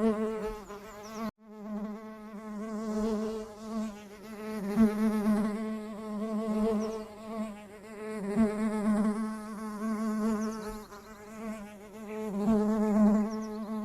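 Bees buzzing: a steady, wavering drone that swells and fades several times, with a brief dropout about a second in.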